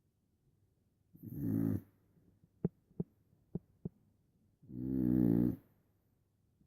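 A sleeping pet snoring: two long snores about three and a half seconds apart, with a few short clicking sounds between them.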